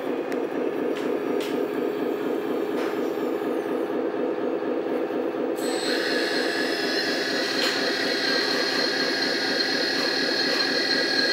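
Hydraulic system of a LESU 1/14 RC truck-mounted crane running as the crane is folded back: a steady pulsing hum, with a higher steady whine joining about halfway through.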